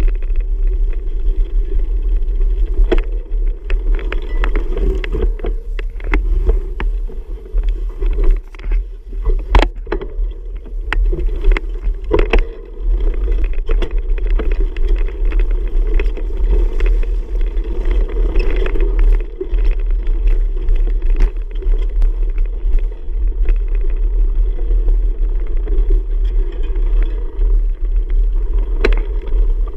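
Steady wind rumble on the microphone of a camera riding along on a bicycle, with frequent short knocks and rattles from the bike over the trail.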